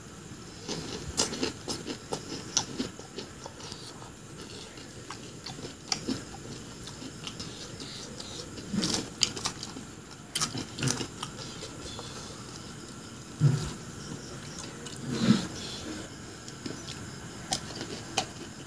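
Close-miked eating of pani puri: crisp, hollow puri shells cracking and crunching, with chewing in between and several louder crunches in the second half.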